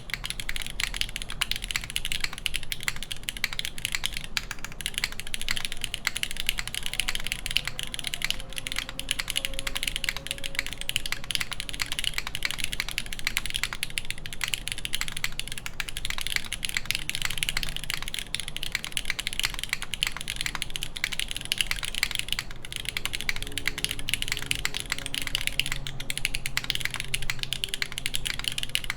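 Continuous fast typing on a SINGAKBD Kohaku mechanical keyboard with lubed, broken-in Cherry MX Black linear switches, an aluminum plate and GMK keycaps. Dense, even keystroke clacks follow one another without pause.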